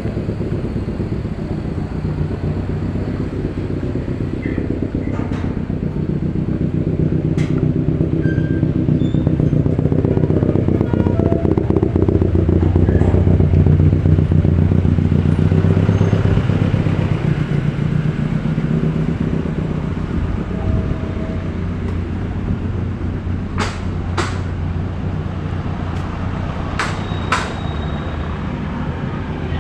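Street traffic, with a motor vehicle engine running close by that grows louder and then fades about halfway through. A few sharp clicks come near the end.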